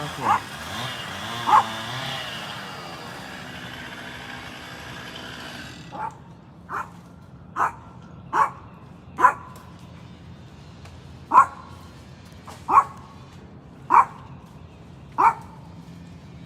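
A dog barking repeatedly, single barks about a second apart, around a dozen in all. Under the first barks a machine runs steadily, then cuts off about six seconds in.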